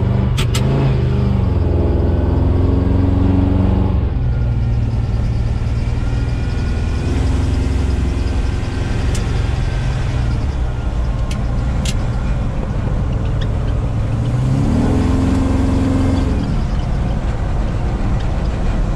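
Vortec engine of a custom Jeep-bodied truck on a 3500 chassis, heard from inside the cab while driving: it revs up under acceleration through the first few seconds and again about three-quarters of the way through, running steadier between, with road noise underneath.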